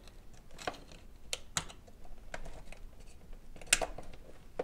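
Fingers working the shell clips of a 1950s Marx F3 toy locomotive: a scatter of small clicks and taps as the shell is pried loose, with one sharper snap a little before the end.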